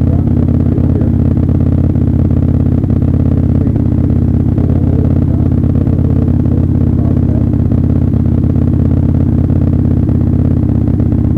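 Drag-racing motorcycle engine idling steadily, loud and close from the rider's seat, with no revving.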